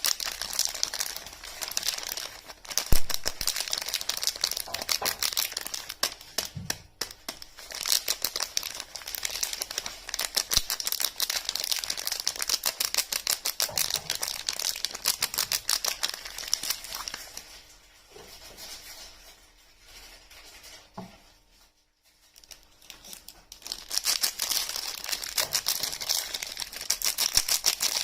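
Soap packaging being crinkled and torn open in dense crackling runs, with one sharp knock a few seconds in and a quieter pause of several seconds past the middle.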